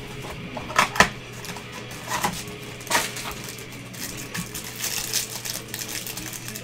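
Gloved hands opening a cardboard trading-card hanger box and handling the cards: a few sharp taps and knocks in the first three seconds, then a run of small crackling handling noises.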